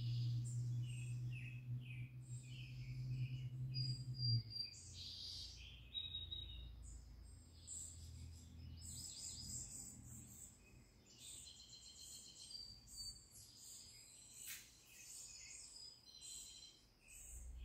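Woodland birds chirping and trilling in quick, overlapping calls, played from a wildlife video on a television. A low steady hum runs underneath and stops about four seconds in, and there is a single sharp click late on.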